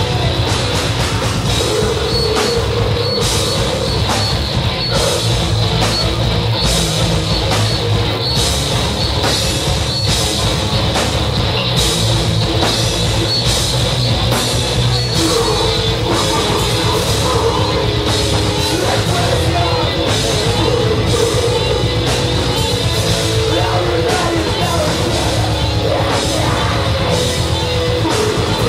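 Metalcore band playing live: heavily distorted guitars and bass over a drum kit, with frequent cymbal and drum hits, loud and dense without a break.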